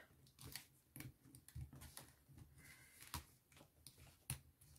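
Faint, scattered light clicks and taps of paper card being handled as a die-cut cutout is pressed out of its sheet.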